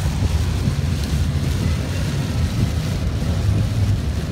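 Heavy rain and road noise inside a moving car: a steady low rumble under an even hiss of rain and wet tyres.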